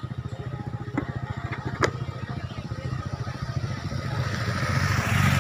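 A motorcycle engine idles close by with a rapid, even low pulsing. An escort motorcycle approaches and passes, its engine and tyre noise swelling loudest near the end. A couple of sharp clicks come about one and two seconds in.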